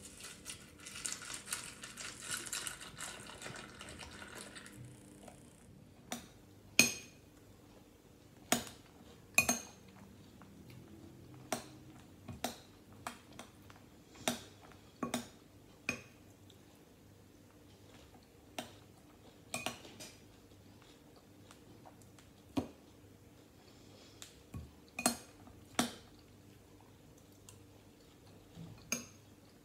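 Milk poured onto puffed wheat cereal in a ceramic bowl for about five seconds. Then a metal spoon clinks against the bowl again and again, at irregular intervals, as the cereal is eaten.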